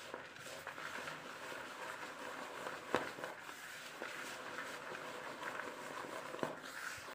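A hand rubbing and turning a crumbly rice-flour mixture in a plastic basin, making a steady gritty rustle. Two sharper taps come about three seconds in and again near the end.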